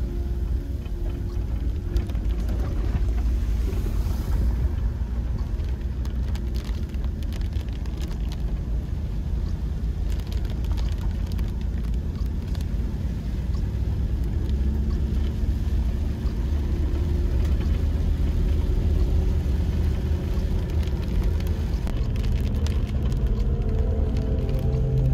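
Toyota LandCruiser 78 Series Troopcarrier driving, a steady low rumble of engine and road noise with scattered brief ticks.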